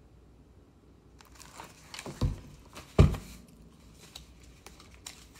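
Handling noise from a picture book being lowered and handled: light rustling and two dull thumps about two and three seconds in, the second the louder.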